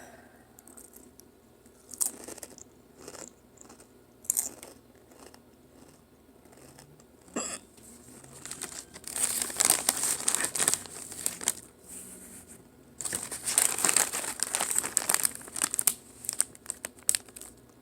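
A foil chip bag crinkling in two long spells in the second half, after a few short isolated crunchy sounds in the first half.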